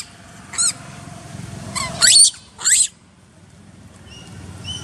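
Macaques giving a few short, high-pitched squeals in the first three seconds, each falling in pitch, followed by a few faint chirps near the end.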